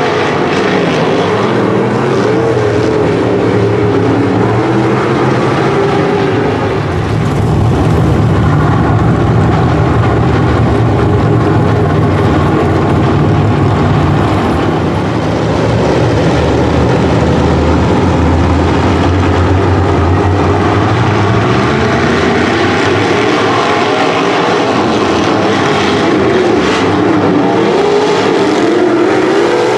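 Modified dirt-track race cars' V8 engines running hard as the field laps the track, several engines overlapping with their pitch rising and falling as cars accelerate and pass.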